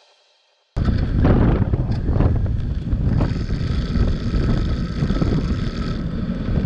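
Wind buffeting the microphone over a low rumble from the wheel rolling along the path, cutting in abruptly about a second in and continuing unevenly.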